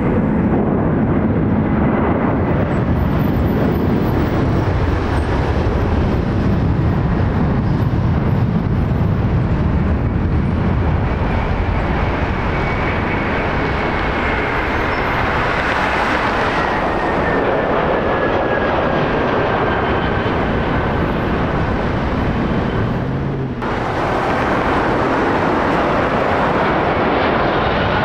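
UPS Airbus A300 freighter's jet engines at takeoff power, a loud steady roar through the takeoff roll and climb-out, with a high whine that slowly falls in pitch as the jet passes. Near the end the sound cuts abruptly to the engines of a FedEx Boeing 767-300F on landing approach.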